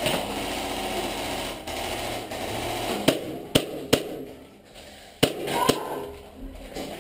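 Airsoft pistol fired five times: three quick cracks about three seconds in, then two more just after five seconds.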